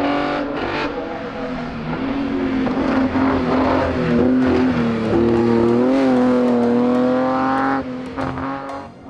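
BMW E21 3 Series race car engine revving hard up a hill-climb course. The pitch drops at the start, then holds and climbs steadily, and the sound cuts away near the end.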